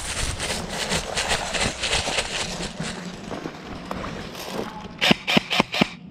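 Rustling and handling noise, then about a second before the end a quick string of sharp cracks, about six a second: an airsoft rifle firing rapid shots.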